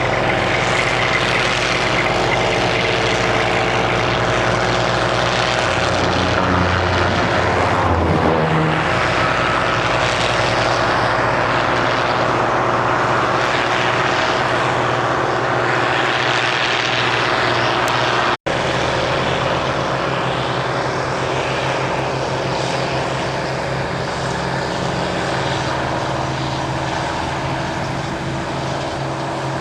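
Steady drone of a heavy engine working, its pitch shifting briefly about seven or eight seconds in. The sound drops out for an instant about eighteen seconds in.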